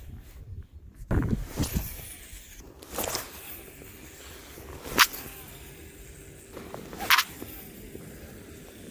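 Handling noise from a baitcasting rod and reel during a cast and retrieve: a low rumbling knock about a second in, then two sharp clicks, the first and louder near the middle and the second about two seconds later.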